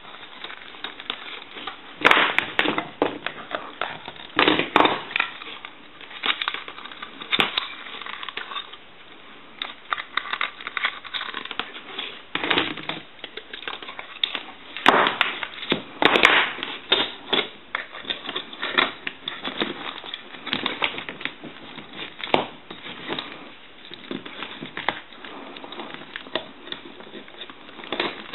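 Irregular clicks, taps and rustling as the parts of a Northern Electric payphone handset are handled and fitted back together.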